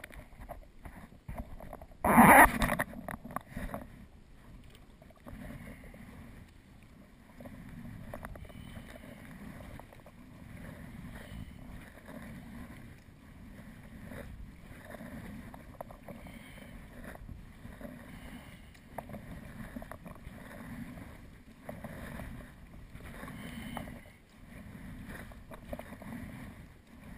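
Sea kayak being paddled on calm water, the paddle strokes swelling and fading about every two seconds. A short, loud burst about two seconds in.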